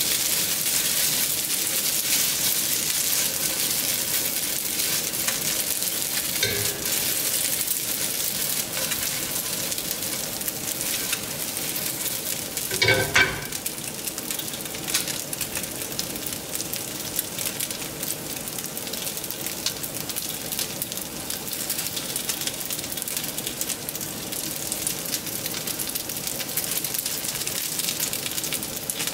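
Dumplings pan-frying in a nonstick frying pan, a steady crackling sizzle, with a brief clatter about thirteen seconds in.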